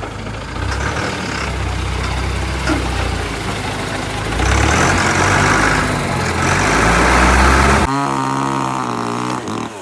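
An engine running steadily, louder from about four and a half seconds in. Near eight seconds it changes abruptly to a clearer, even-pitched engine note that shifts in pitch near the end.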